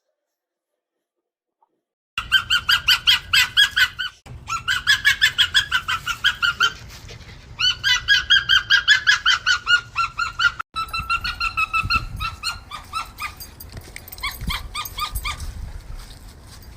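Arctic fox giving long runs of short, high, rapidly repeated yapping calls, about seven a second, starting about two seconds in and broken by two brief gaps.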